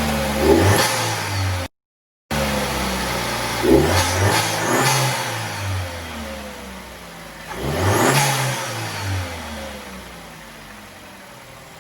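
2015 Chevy Cruze engine being blipped several times, each rev rising and falling in pitch, with a brief cut to silence about two seconds in. It then settles back to a quieter idle near the end.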